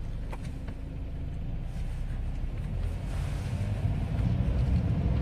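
A steady low rumble that grows slowly louder, with a few faint clicks.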